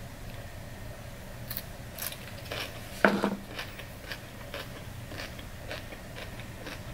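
Close-miked chewing of a mouthful of coleslaw: scattered small crisp crunches and wet clicks, with one louder short mouth sound about three seconds in.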